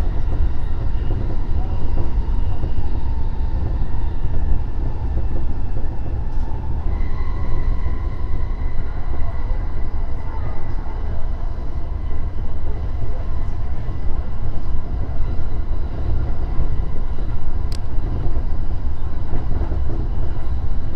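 JR East E233-3000 series electric train running along the line: a steady low rumble of wheels on rail. A faint steady high whine joins about seven seconds in, and there is one sharp click near the end.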